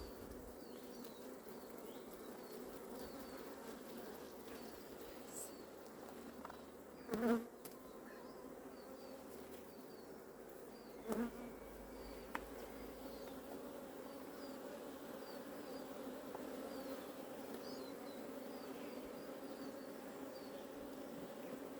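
Honeybees humming steadily around an open hive. Two brief, louder buzzes come about 7 and 11 seconds in.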